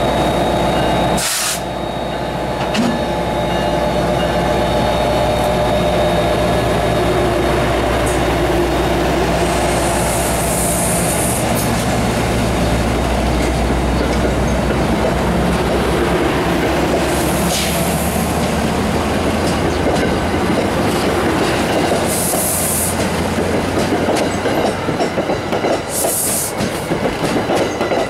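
NJ Transit diesel-hauled passenger train passing close by: the locomotive's engine drones at first, then the coaches roll past with a steady wheel rumble and four short, high-pitched wheel squeals.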